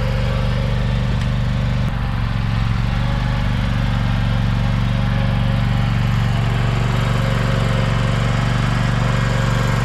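John Deere X570 garden tractor engine running steadily while the tractor pushes a load of snow with its front plow.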